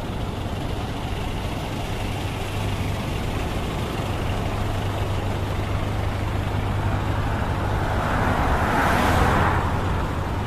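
Road traffic going by close at hand: a steady engine hum and tyre noise, with one vehicle passing loudly about eight to nine seconds in.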